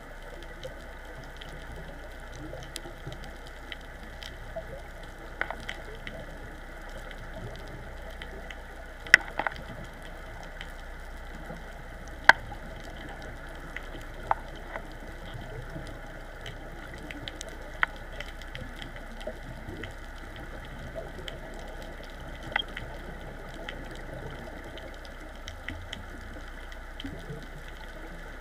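Underwater reef ambience: a steady hiss with a low hum under it, and scattered sharp clicks, the loudest about nine and twelve seconds in.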